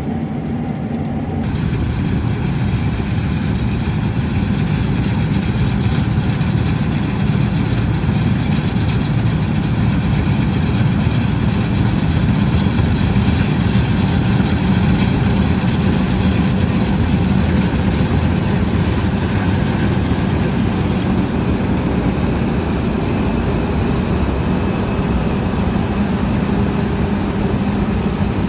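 Combine harvester running steadily while cutting wheat: a continuous engine and threshing-machinery hum. About a second and a half in the sound suddenly gains more hiss.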